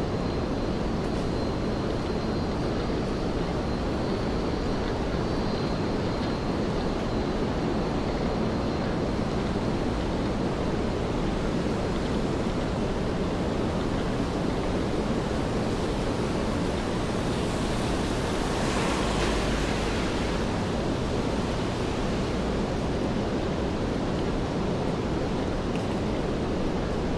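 Steady rainfall on a city street: an even hiss of rain and wet pavement. A brief louder swish comes about two-thirds of the way through.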